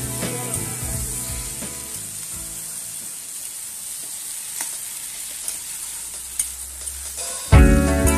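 Food sizzling as it fries in a pan, with a few light clicks of a spoon stirring. Background music fades out over the first couple of seconds and comes back in loudly near the end.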